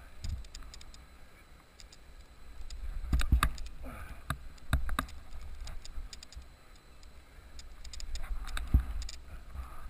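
Wind rumbling over a helmet camera's microphone as a snowboarder rides off a jump and flips, swelling to a louder rush about three seconds in, with sharp knocks and clatter of board and gear about three and a half and five seconds in and a dull thump near the end.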